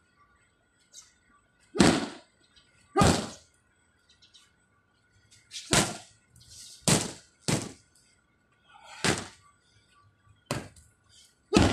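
Gloved strikes landing on hand-held Muay Thai pads: about eight sharp smacks, spaced irregularly, with a quick run of three in the middle.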